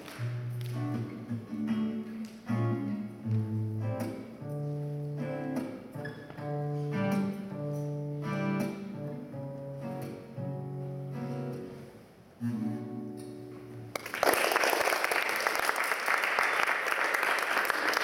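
Acoustic guitar played solo, picked notes and chords ringing out as the closing passage of a song. About fourteen seconds in the guitar stops and audience applause breaks out, louder than the guitar.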